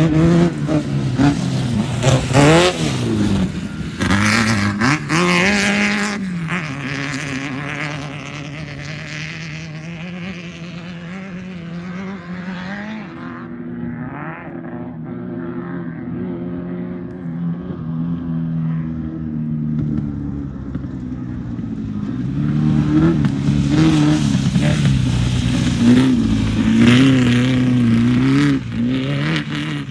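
Class 1600 off-road race car's air-cooled 1600 cc VW engine running hard. Its revs rise and fall repeatedly in the first several seconds and again in the last third, and hold steadier and a little quieter in the middle.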